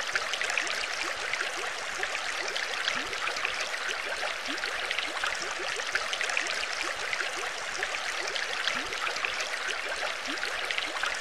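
Steady underwater bubbling and trickling water, many small bubbles popping and gurgling without a break.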